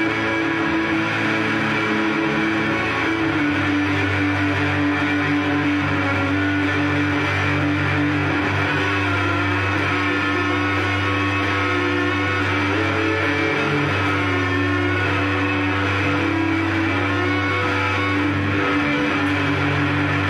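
Solo electric guitar, a seafoam-green offset-body guitar played through a Fender combo amp. It is picked fast and densely over held low notes that change a few times, giving a continuous ringing drone.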